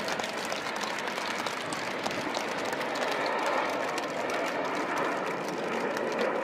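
Crowd applauding: a dense patter of many hands clapping over a steady distant roar from the RAF Red Arrows' BAE Systems Hawk T1 jets flying away in formation.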